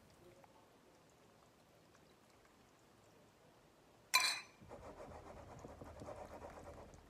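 A metal spoon clinks sharply against a ceramic bowl about four seconds in. Then come a few seconds of soft scraping and pouring noise as tomato-paste sauce is scraped out of the bowl over the cabbage rolls in a steel pot.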